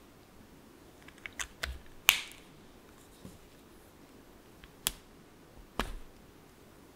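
Plastic caps of a Tombow ABT dual brush pen being pulled off and snapped back on: a quick cluster of sharp clicks in the first half, the loudest about two seconds in, then two single clicks near the end as the marker-tip cap comes off.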